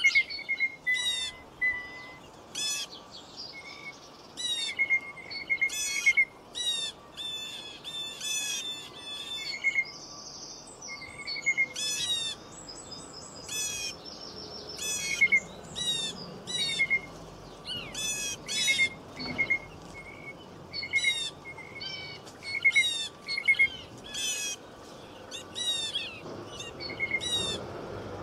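Birds chirping and singing in many short, quick calls repeated throughout, with a fainter steady background hiss.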